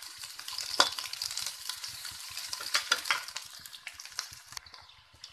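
Chopped onions sizzling in hot vegetable oil in a metal kadhai, stirred with a perforated metal spoon that clicks and scrapes against the pan a few times. The sizzle dies down near the end.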